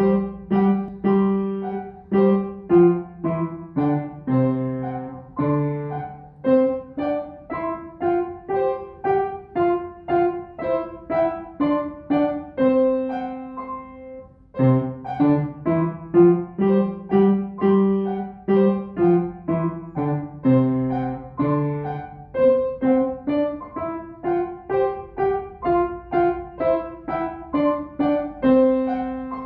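Schimmel upright piano played: a simple tune of evenly struck notes, with a brief break about halfway through, ending on a held note.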